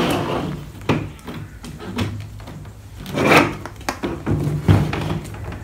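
Handling noise from a thin clear plastic door-card backing sheet being lifted, flexed and slid across a table, with rubbing scrapes and several knocks as a plastic armrest and switch panel is test-fitted into it; the loudest knocks come about three and about four and a half seconds in.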